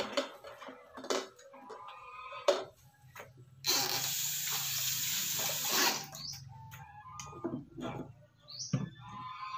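Water running from a kitchen faucet into a stainless steel sink for about two seconds, starting and stopping abruptly. Light knocks and clatter of hands and items at the sink come before and after it.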